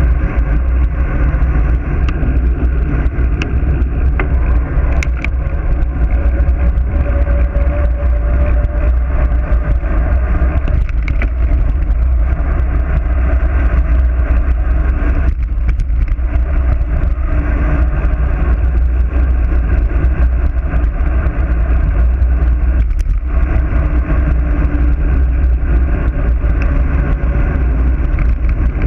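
Wind buffeting a bike-mounted action camera during a fast road-bike descent: a loud, steady low rumble.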